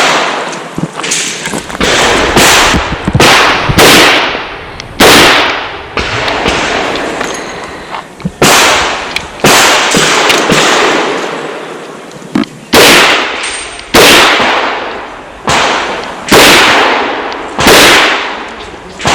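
A string of handgun shots fired in quick groups, each a sharp crack that rings out and decays, more than a dozen in all, with a pause of about three seconds midway.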